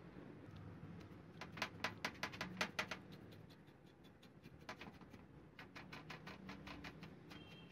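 A stiff bristle brush scrubbing a small die-cast metal toy truck in a wet metal tray, working loosened paint off: two spells of quick scratchy strokes, several a second, one starting about a second and a half in and one near the middle.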